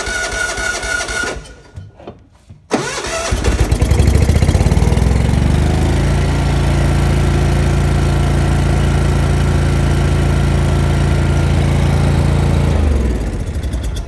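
Gasoline engine of a Lincoln Ranger 250 engine-driven welder being started. The electric starter cranks with a whine, and after a short break it cranks again. The engine catches about three seconds in and runs steadily, then is shut off and runs down near the end. It starts now that it has fresh gas, which shows the earlier crank-no-start was a fuel-feed problem.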